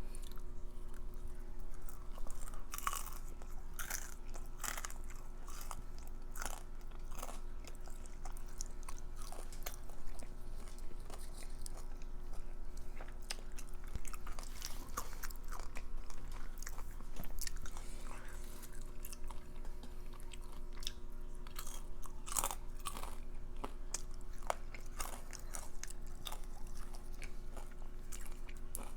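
Close-miked eating: a person chewing and biting into crisp, crunchy food, likely a fried crab cream cheese wonton, with irregular clicks and crunches that bunch up around bites and spread out into chewing between.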